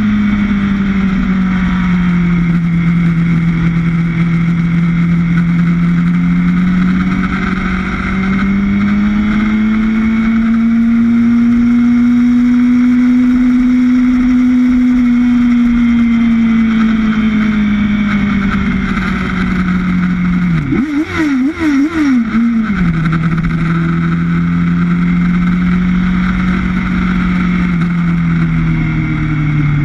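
Sportbike engine heard from an onboard camera at track-day speed, its revs rising and falling slowly with the throttle, over wind rush. About two-thirds of the way through, the revs jump up and down quickly a few times as it shifts gear, then the engine holds a lower, steady note that falls away near the end.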